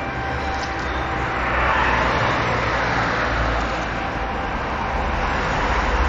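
Noise of a passing vehicle, swelling about two seconds in and easing off again.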